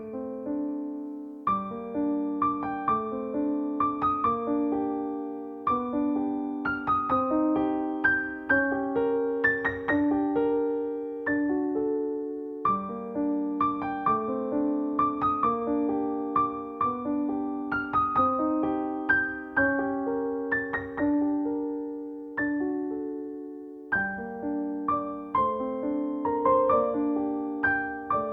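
Soft solo piano music: a slow melody of struck notes over gently repeating chords, each note fading after it is played.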